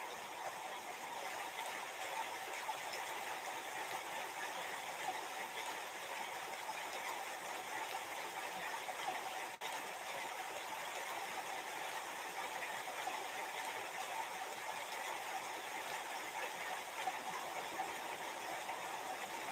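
Steady background hiss with no distinct events, cutting out for an instant about halfway through.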